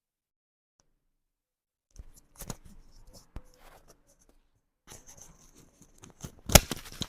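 About two seconds of dead silence, then scattered rustling and light clicks of objects being handled, with one sharp knock near the end.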